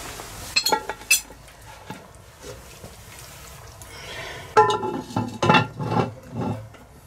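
Cast-iron Dutch oven lid, loaded with burning briquettes, clinking and clanking on the pot. Two sharp metallic clinks come about a second in. A louder run of ringing clanks and scrapes follows around five to six seconds in, as the lid is set down on the pot and the coals are pushed about on top.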